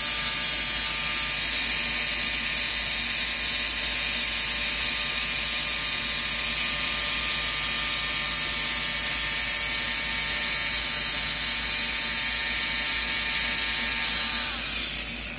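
3Doodler 3D pen running steadily, its small geared feed motor whirring as it pushes plastic filament through to draw. It winds down and stops near the end.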